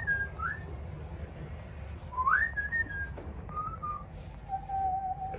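A person whistling a short, casual tune: notes that swoop upward and hold, ending on a longer, lower held note, over a steady low room hum.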